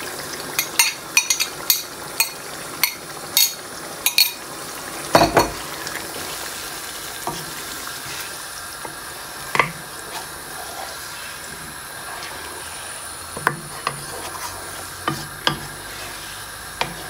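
A spatula stirring chicken in a thick yogurt-tomato gravy in a non-stick frying pan, knocking and scraping against the pan over a steady low sizzle from the simmering gravy. Quick sharp clacks come in the first four seconds, a louder knock about five seconds in, then scattered knocks.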